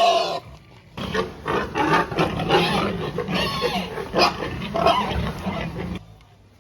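Pigs squealing and grunting loudly, one call at the start, then a dense stretch of overlapping squeals after a short pause, which cuts off suddenly near the end.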